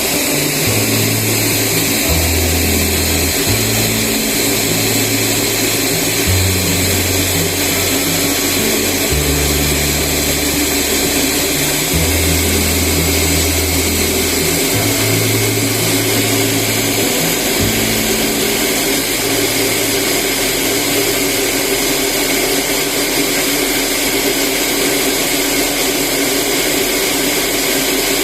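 Household rice polishing machine running steadily as it mills brown rice into white rice: a constant motor whine over a loud hiss.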